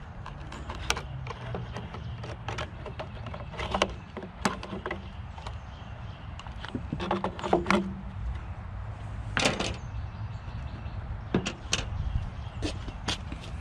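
Irregular sharp clicks, knocks and clanks of metal scrap being handled and worked on by hand, some in quick clusters, over a steady low rumble.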